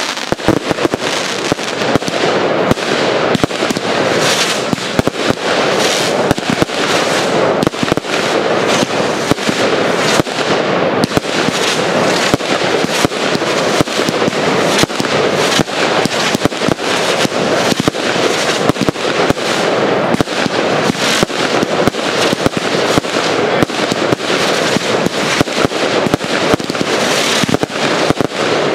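Fireworks display firing a dense barrage: sharp bangs of bursting shells, many a second, over continuous crackling.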